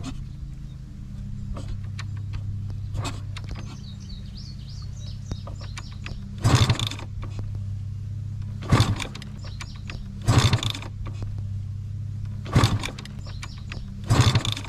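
A power tool run in five short bursts of about half a second each, with a fast rattling pulse, as fasteners are worked loose on an engine being torn down, over a steady low hum.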